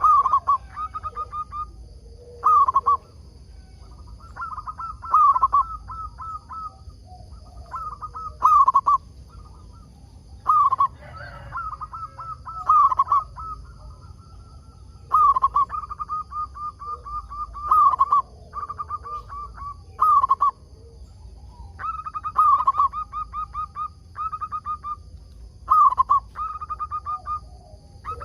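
Zebra dove (perkutut) cooing over and over: each phrase opens with a loud note and runs into a fast stutter of short, even notes, with a new phrase every two to three seconds.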